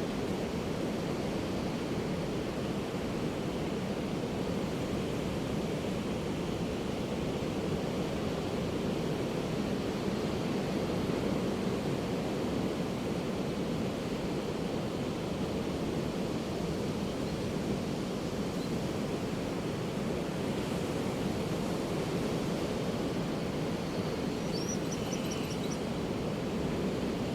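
Steady wash of ocean surf breaking on a beach, an even rushing noise. A short run of about five high, quick chirps comes near the end.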